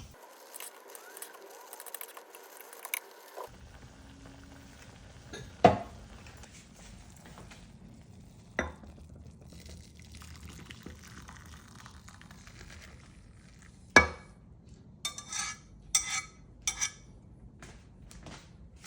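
Cookware and utensils knocking and clinking: three sharp knocks several seconds apart, then a quick run of clinks near the end.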